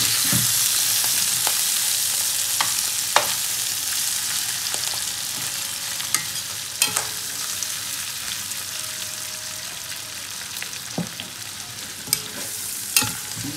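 Potatoes frying in hot oil in a pan, a steady sizzle that slowly eases, with a few sharp clicks of a utensil against the pan.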